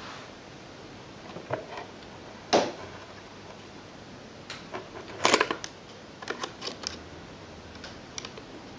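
Irregular light clicks and taps of small model train parts being handled and fitted on a workbench, with one sharper knock a few seconds in and a quick run of clicks around the middle.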